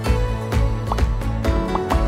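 Background music with a steady beat, about two beats a second, a sustained bass and short high notes over it.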